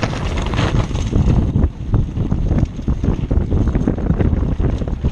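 Wind rushing over the microphone of a camera on a downhill mountain bike, with a continual clatter and knocking of the bike and tyres jolting over wooden planks and then a rough dirt trail.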